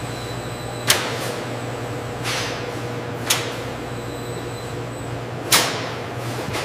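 Steady factory machinery hum with a faint high whine, broken by three sharp clacks spaced a little over two seconds apart. The first and last clacks are the loudest and ring on briefly.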